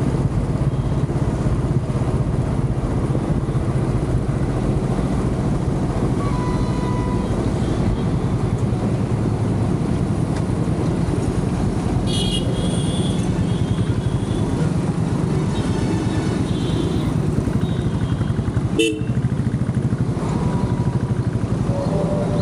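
Royal Enfield Classic 350's single-cylinder engine running steadily under way, with road and wind noise and surrounding traffic. Vehicle horns honk several times, mostly in the middle stretch.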